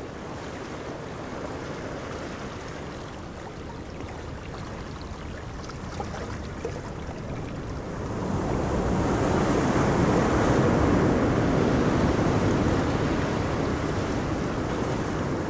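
Waves lapping on open water, with wind on the microphone, as a steady rushing noise that swells about halfway through and eases off a little near the end.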